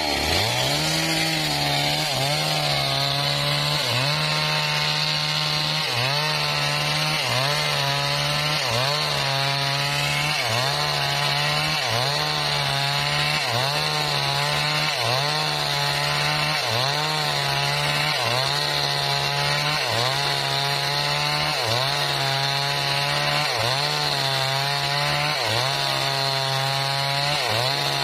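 Homemade engine-driven circular sawmill running under load and sawing timber. A steady high whine rides over the engine note, which dips briefly and recovers a little more than once a second.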